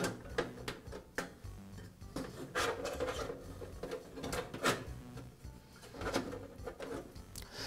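Sheet-metal baffle being worked into a NuTone vent-fan-heater's metal housing: scattered light clicks and knocks with a few short scrapes of metal on metal as it is pushed and flexed into place.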